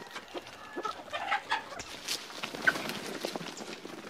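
A flock of chickens clucking, with many short scratchy clicks scattered among the calls.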